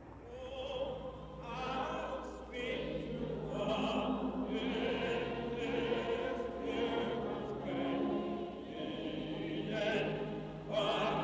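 A choir singing slowly, each note held a second or two with vibrato.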